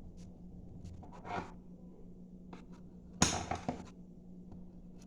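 A knife cutting a piece from a loaf of freshly baked soft bread: faint ticks, a short scrape, then a louder cluster of scraping and knocks about three seconds in.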